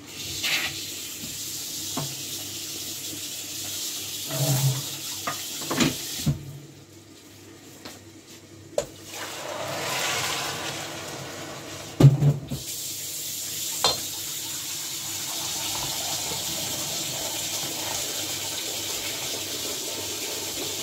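Water poured from a glass bowl into a stainless steel pot of rice, then stirred in with a spatula. Several knocks of bowl and spatula against the pot, the loudest about halfway through.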